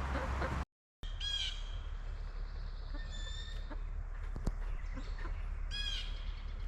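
Birds calling: two short, harsh calls, one about a second in and one near the end, and a thinner call around three seconds, over a steady low rumble. A single sharp click comes midway.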